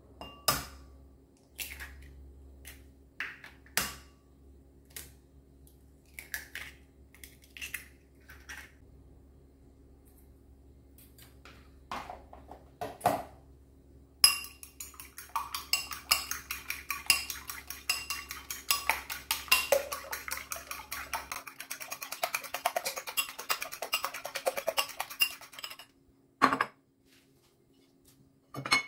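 Eggs tapped and cracked against the rim of a ceramic bowl, a few separate clicks. About halfway through, they are beaten with a metal utensil in the bowl: a fast, steady clatter lasting some twelve seconds that stops suddenly. Two single knocks follow near the end.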